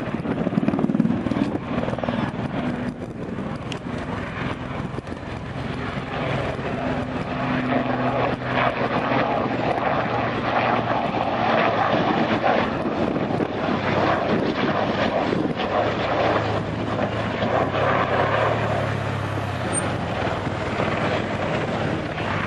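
Swiss Air Force Super Puma twin-turbine helicopter in flight: a steady rotor and turbine noise with a low shifting hum, growing louder from about six seconds in.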